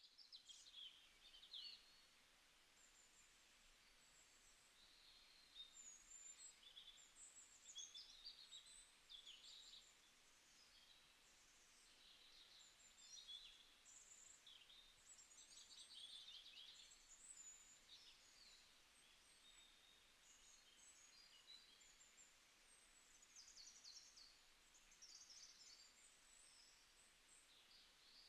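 Faint birdsong: many short, high chirps and trills overlapping throughout, like several birds singing at once.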